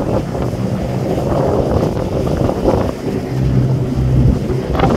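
Pilot boat running alongside a moving ship: rushing, churning wake water over a steady low engine hum that swells a little late on, with wind buffeting the microphone.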